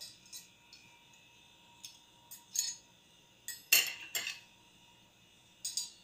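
Metal fork and knife being handled: a string of short clinks and taps at irregular intervals, the loudest cluster a little under four seconds in.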